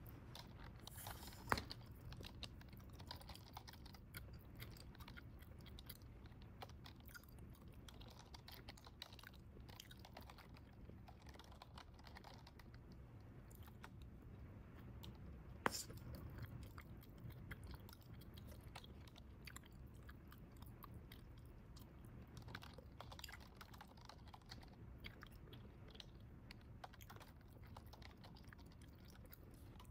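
Quiet bubble gum chewing: a steady run of small mouth clicks, with two sharp, louder pops of the gum, one about a second and a half in and one about halfway through.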